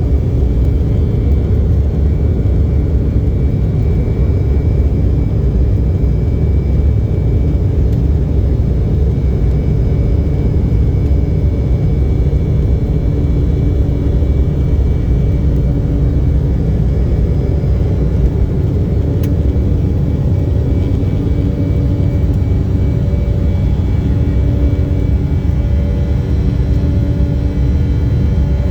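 Steady in-flight cabin noise of an Embraer 190: a deep, even rumble of airflow and its two turbofan engines, with faint steady engine tones above it.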